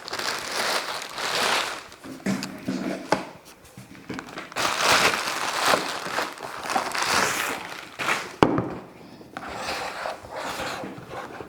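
Plastic packaging crinkling and rustling in irregular handfuls as a vacuum cleaner is unpacked, with one sharp knock about two thirds of the way through.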